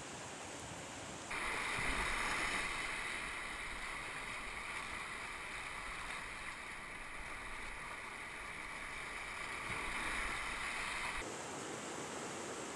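Rushing whitewater of river rapids around a kayak, a steady wash of water noise that jumps louder suddenly about a second in and drops back suddenly near the end.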